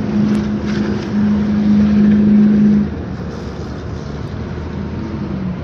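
Road traffic passing close by, with a steady engine hum that swells for about two seconds and then drops away.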